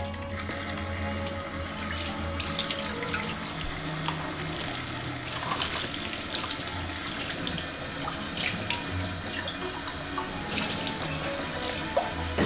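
Kitchen faucet running into a stainless steel sink as dishes are rinsed under it, with scattered light clinks of a glass and colander against the sink.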